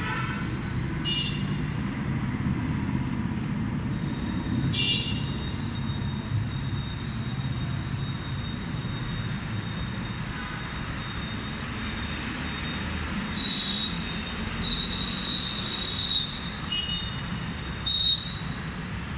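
Steady low rumble of city traffic. A thin high-pitched whine runs through much of it, with a few short high squeals, one about five seconds in and others near the end.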